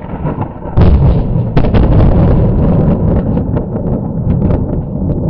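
Thunder from a very close lightning strike: a loud sharp crack about a second in, a second crack soon after, then a long heavy rumble with crackling.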